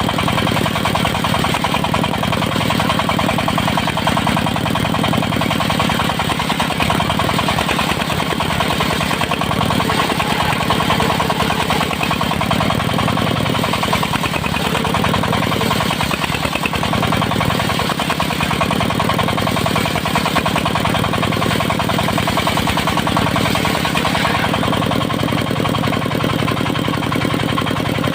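Engine of a portable circular sawmill running steadily.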